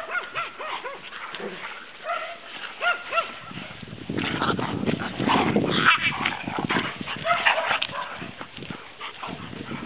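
Puppy giving short high yips and whimpers while it plays, with a stretch of rustling noise in the middle.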